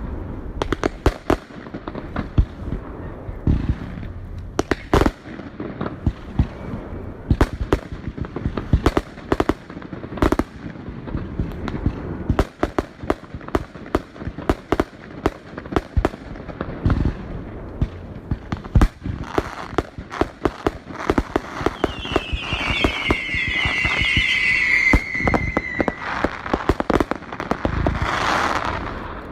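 Fireworks going off: a dense run of sharp bangs and crackling reports. Partway through comes a cluster of descending whistles from whistling shells, and near the end a louder rush of noise.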